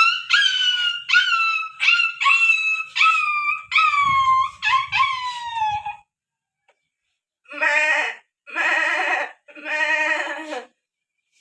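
A run of about eight high, whimpering cries like a dog's whine, each falling in pitch, then after a pause three short bleat-like calls, like a goat's.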